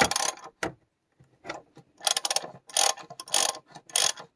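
Ratchet wrench clicking in short bursts, four or five strokes between about 1.5 and 4 seconds in, as the new oil drain plug is turned in.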